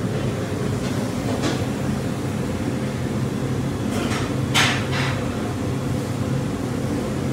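Steady low hum of running machinery with several held tones, with a short rustle about four and a half seconds in.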